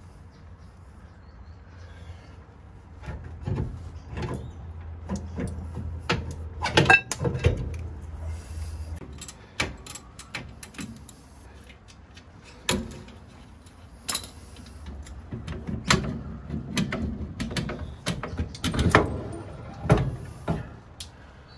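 Irregular metal knocks, clanks and scraping as a caravan's brake drum is worked off the axle hub and the brake shoes and backing plate are handled. One clank about seven seconds in rings briefly, and a low hum runs underneath for stretches.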